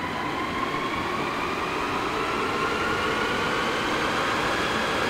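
Automotive wind tunnel running up to speed: a steady rush of air with a whine that rises slowly in pitch as the flow builds.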